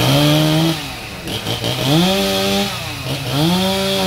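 Two-stroke chainsaw revved up and held high three times, dropping back toward idle between each burst: at the start, about two seconds in, and again just past three seconds in.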